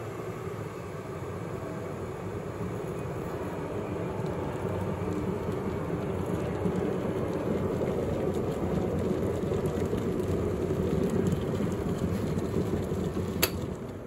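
Russell Hobbs stainless-steel electric kettle heating water: a steady rushing noise that grows louder as the water nears the boil, then a single sharp click near the end as the automatic switch cuts off at the boil, after which the noise drops.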